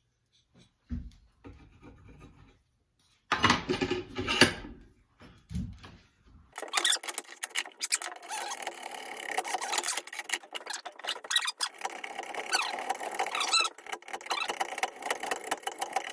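Hand tool shaving and scraping a wooden axe handle: a few loud knocks and handling clatter, then from about six and a half seconds in a continuous, rapid scraping as the freshly sharpened blade cuts into the wood.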